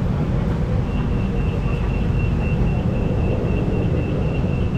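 Steady low hum inside an MRT Yellow Line monorail car (Bombardier Innovia Monorail 300) standing at a station. About a second in, a high rapid beeping starts and keeps going, typical of the door-closing warning.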